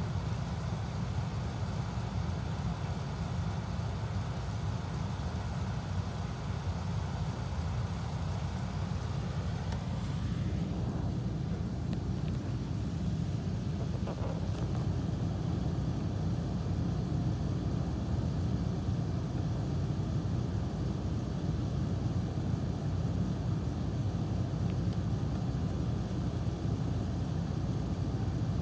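Steady low background rumble with no distinct events; a fainter hiss above it drops away about ten seconds in.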